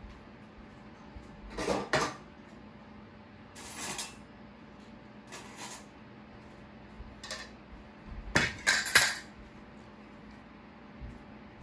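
Dishes and cutlery clattering as a plate with a spoon and fork is set down on a table. There are several short bursts a second or two apart, and the loudest comes about eight seconds in.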